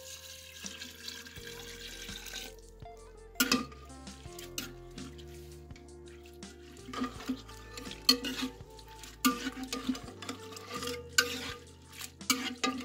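Water pouring into an aluminium pressure cooker for about two and a half seconds. Then a metal spoon stirs wet lentils, onions and meat, knocking and scraping against the pot's sides again and again. Background music plays underneath.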